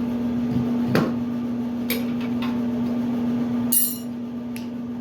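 Metal washing-machine parts being handled: a few sharp clicks and knocks, then one louder metallic clank with a ringing tail near the end, over a steady low hum that cuts out after the clank.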